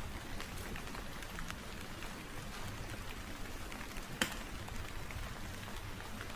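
Steady rain falling, with individual drops striking close by as scattered short clicks; one sharper click about four seconds in.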